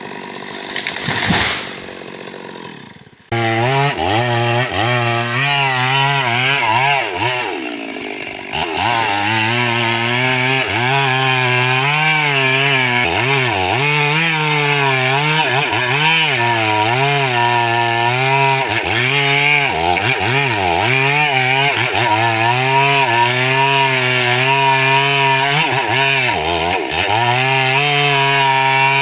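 Stihl MS 382 two-stroke chainsaw running hard, its engine note sagging and recovering again and again. It comes in suddenly about three seconds in, after a short stretch of other noise, and runs on with only a brief drop near eight seconds.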